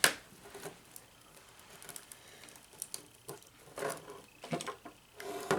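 Cracked tablet screen glass being peeled away: a sharp click at the start, then scattered small clicks and crackles, with a denser patch about four seconds in and again near the end.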